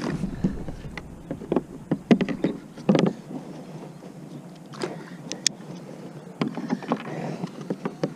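Irregular knocks, clicks and rattles of fishing gear being handled in a plastic kayak, with some water movement and low rumbling near the start and again near the end.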